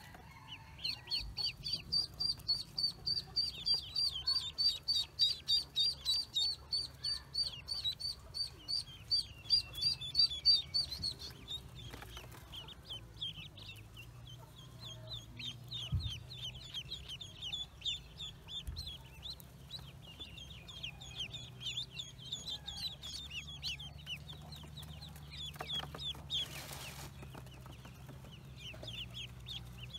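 Newly hatched ducklings peeping: for about the first ten seconds one loud, fast, evenly repeated peep stands out, then a softer chorus of many overlapping peeps.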